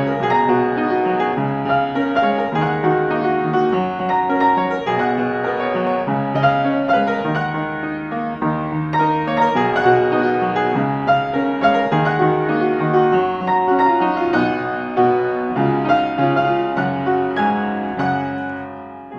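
Solo piano music playing a gentle melody with sustained chords, easing off briefly near the end.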